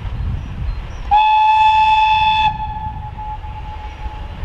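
VL8m electric locomotive's high-pitched whistle blown once for about a second and a half, starting about a second in, then trailing off into a fainter tone for about two more seconds. Under it runs the low rumble of the approaching train.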